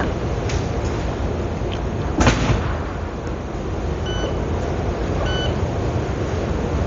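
Two short electronic beeps about a second apart over a steady low background noise, with a single sharp click about two seconds in.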